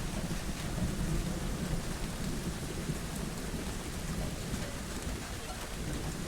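Steady rainfall, an even hiss of many drops, with a low continuous rumble underneath.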